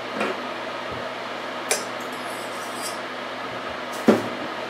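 A few light clicks and knocks of kitchen items being handled beside a saucepan, a sharp click about a second and a half in and a duller knock near the end, over a steady low hum.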